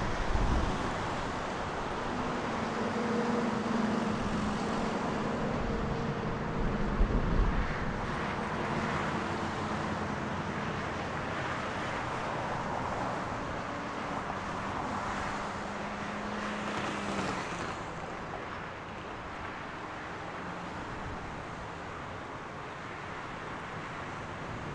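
An Airbus A330-203's General Electric CF6-80E1 turbofan engines on final approach and landing, a steady rushing jet noise with a low hum under it that fades a little near the end. Wind gusts rumble on the microphone at the start and again about seven seconds in.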